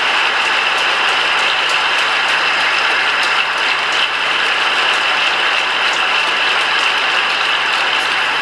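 Audience applause: a dense, steady crackle of many hands clapping, dying down near the end.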